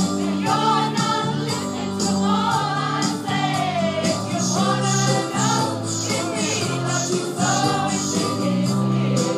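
Choir singing, mostly women's voices, with low held notes under a moving melody.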